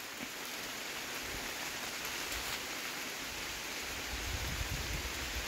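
Steady rain pattering on tree leaves and the river's surface, an even hiss, with some low rumbling from about four seconds in.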